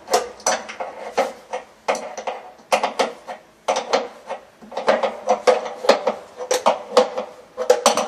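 Wrench clinking on the brass nut of a braided stainless flex line as it is tightened onto a water heater fitting: a quick, irregular run of metal clicks, two or three a second.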